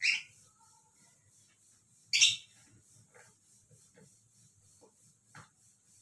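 Albino cockatiel giving two short, sharp, high-pitched calls about two seconds apart while having its head scratched, followed by a few fainter soft sounds.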